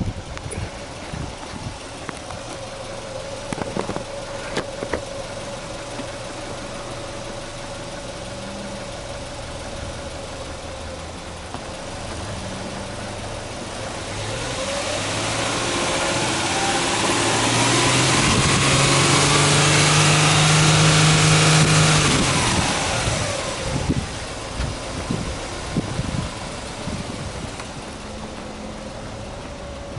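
Subaru Legacy Touring Wagon 2.5GT's turbocharged flat-four boxer engine idling, then revved in neutral: the engine note climbs steadily a little before halfway, is held high for a few seconds, then drops back to idle.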